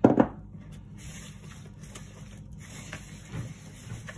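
A glass measuring jug set down on the worktop with a loud double knock, then a wooden spoon stirring and scraping a crumbly flour-and-water dough in a mixing bowl, with a couple of softer knocks against the bowl near the end.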